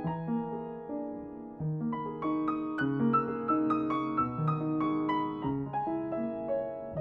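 Upright piano played solo: a slow classical piece, a melody moving over sustained accompanying notes, a few new notes each second.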